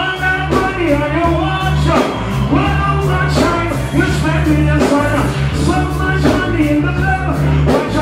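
Live dancehall performance through a PA: a heavy bass-driven riddim with a steady drum beat, and a vocalist chanting and singing into a microphone over it.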